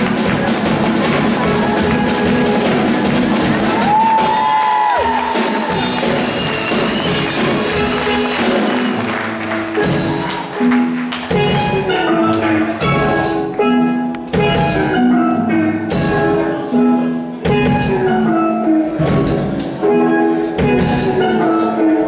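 Live steel band playing with a drum kit: steel pans carry the pitched notes over a steady drum beat. About halfway through the music thins into a clear, regular pattern of drum hits and pan notes.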